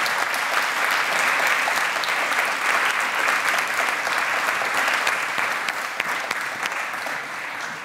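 Audience applauding, a steady dense clapping that begins to die down near the end.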